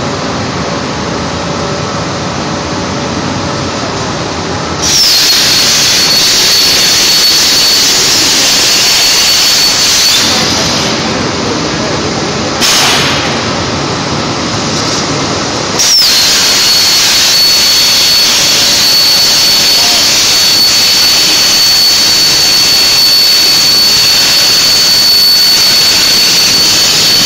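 Hypertherm HyPerformance plasma torch on a CNC cutting table: a loud rushing hiss with a steady high-pitched whine starts about five seconds in and stops about five seconds later. After a short burst, it starts again about sixteen seconds in and runs steadily as the arc cuts through the metal plate. Before it starts there is a steadier, quieter shop machine noise.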